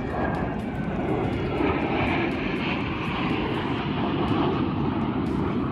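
Jet noise from Blue Angels F/A-18 Super Hornets flying over: a loud, steady rushing that swells about a second and a half in and stays up.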